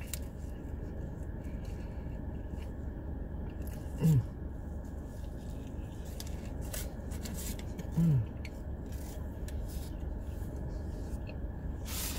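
Car air conditioning blowing as a steady low hum. A woman lets out two short 'mm' sounds that fall in pitch, about four seconds apart, over small clicks and scrapes of handling food.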